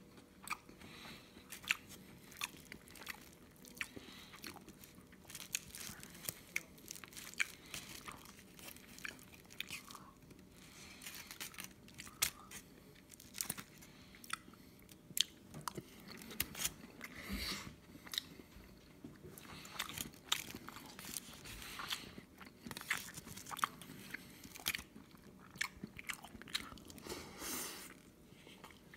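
Close-up chewing and mouth sounds of a person eating a rice burger by the spoonful. Many small sharp clicks and wet smacks follow one another irregularly, with a few louder bursts.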